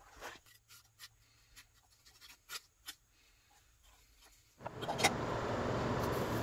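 Wooden stick scraping softened stripping gel and old paint off a cast-iron block plane body, giving soft, scattered scrapes and clicks. About four and a half seconds in, a louder steady hiss starts and runs on.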